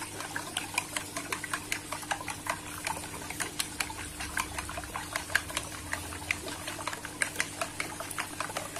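Metal spoon beating raw eggs in a ceramic plate: a quick, even run of clinks as the spoon strikes and scrapes the plate, several a second.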